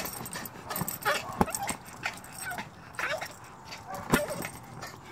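Yorkshire terrier giving short whiny yips while pawing and nosing an inflatable beach ball, with several sharp knocks as the ball and its paws hit.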